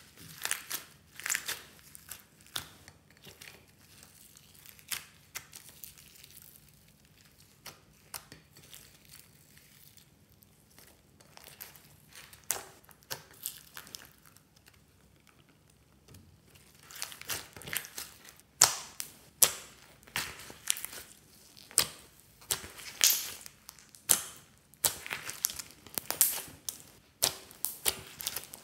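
Hands kneading and stretching fluffy slime mixed with foam beads and sprinkles: irregular sticky crackles and pops as the slime is pulled apart and squeezed. The crackling is sparse at first, pauses briefly past the middle, then comes thicker and louder in the second half.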